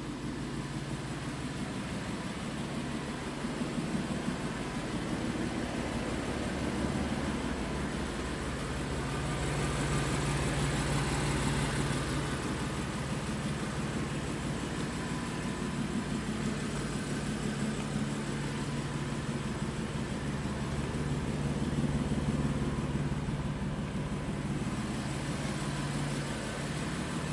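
A 2015 BMW M4's twin-turbo inline-six running steadily with a low drone. The drone swells louder about ten seconds in and again near twenty-two seconds. The owner posts it as a weird noise from the car.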